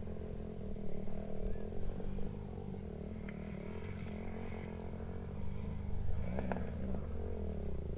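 Dirt bike engine running with a steady note, its pitch shifting briefly about six to seven seconds in; the bike sounds bad.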